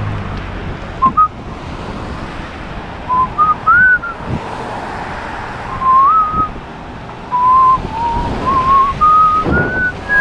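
A person whistling a tune in short phrases of clean notes, close to the microphone, ending on a held note. Underneath runs a steady hiss of wind on the microphone and wet road, with a few sharp knocks.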